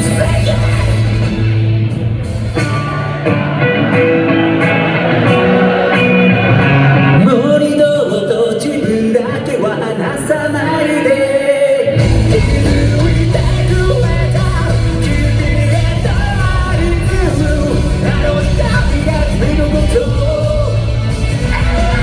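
Live rock band playing with a lead singer: electric guitars, bass and drums under the vocal. About halfway through, the bass and drums drop away briefly, then come back in at full weight.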